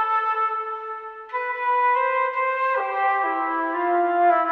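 Concert flute playing a slow hymn melody: a long held note that fades, then a new note enters about a second in and the tune moves on through several more held notes.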